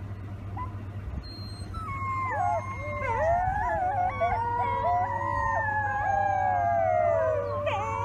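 A group of wolf pups howling together, several wavering voices overlapping, faint at first and swelling into a full chorus about two seconds in. A low steady hum of the vehicle's idling engine runs underneath.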